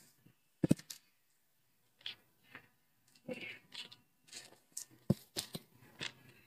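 Potting mix of soil and pine-bark chips being tipped into a plastic flower pot and handled: irregular rustling, scraping and small clicks, with a sharp knock just under a second in.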